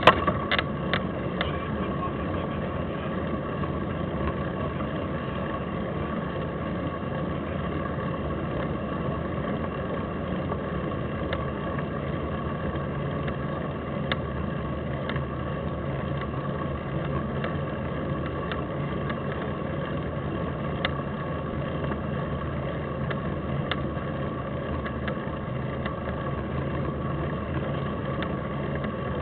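Steady ride noise picked up by a camera riding on a mountain bike climbing a paved road: a constant rush with a faint hum under it, and a few sharp clicks in the first second or so.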